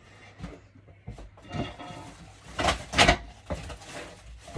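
Small objects being handled, making scattered light clicks and knocks. The loudest clatter comes about two and a half to three seconds in.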